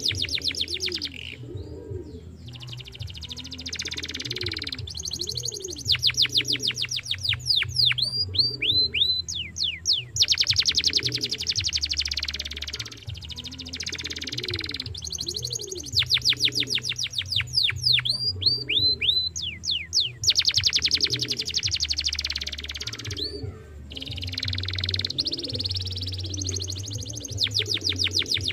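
Young domestic canary singing: long rolls of very fast repeated notes broken by short runs of downward-slurred whistles, phrase after phrase with brief pauses between them.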